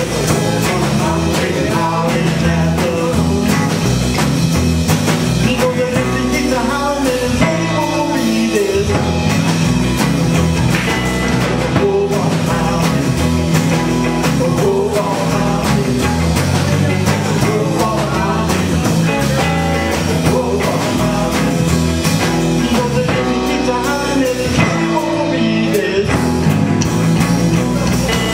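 Live rock band playing a song: electric guitar, electric bass and drum kit, loud and continuous.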